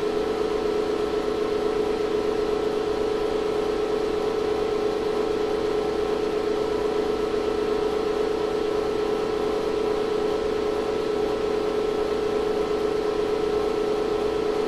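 The running 2500-watt ZVS induction heater rig gives a constant hum with a whir, one strong steady tone over several fainter ones. It is under load, its pancake work coil heating a coffee-can lid red-hot at about 12 amps.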